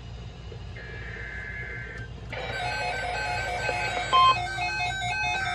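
EAS alert equipment and a NOAA Weather Radio receiver going off for a tornado watch. Faint on-off data tones come first. A little over two seconds in, a rapid electronic alarm of alternating tones starts, with one short, loud beep near the middle.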